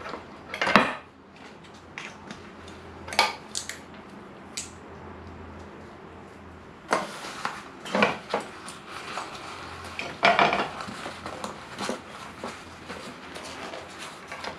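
Scattered small metal clicks and knocks as an Optimus Crux folding gas stove is unscrewed from its gas canister, folded and handled on a wooden table, then slipped into its cloth pouch.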